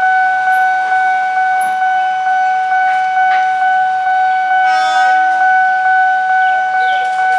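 Railroad crossing warning bell ringing steadily, one high tone struck about three times a second. About five seconds in, a KRL electric commuter train gives a short horn blast of under a second.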